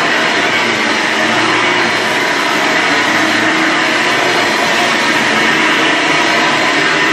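1998 Hoover Runabout U4258 upright vacuum cleaner running steadily and loudly as it is pushed over a rug.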